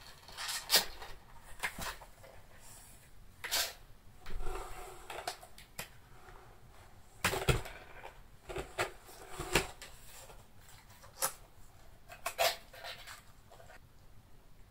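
Cats' paws scratching, scrabbling and bumping against cardboard maze walls: irregular short scrapes and light knocks, a dozen or so spread unevenly.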